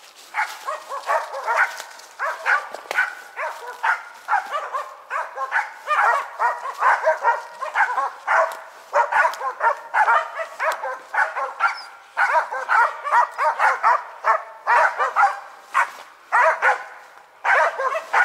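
Karelo-Finnish laikas barking fast and without a break, several dogs overlapping. It is the steady treeing bark of hunting dogs holding a marten up a tree.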